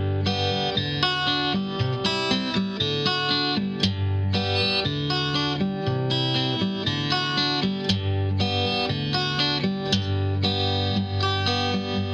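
Background music: a quick run of plucked notes over a held bass line, at a steady level.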